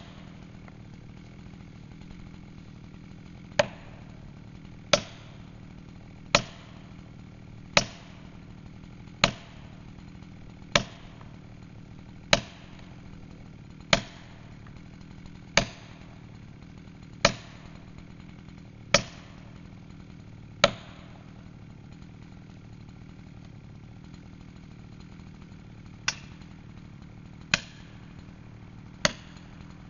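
Repeated single hammer blows on a felling wedge driven into the back cut of a back-leaning beech, each a sharp crack with a short ring, about one every second and a half. The blows pause for about five seconds in the second half, then resume.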